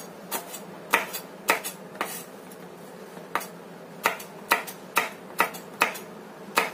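Kitchen knife cutting green beans into pieces on a cutting board: sharp, uneven knocks, about two a second, with a short pause about two seconds in.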